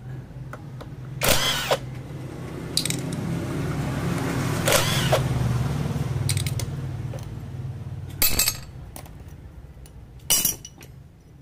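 Metal tools and engine parts clinking and clattering a few times as a motorcycle clutch is taken apart, over a low engine hum that swells to its loudest midway and fades out near the end.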